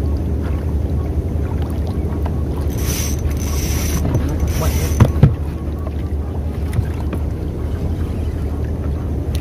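Steady wind rumble on the microphone. About three seconds in, a high hiss lasting about two seconds, plausibly fishing line running off a spinning reel during a cast. Then two sharp knocks in quick succession.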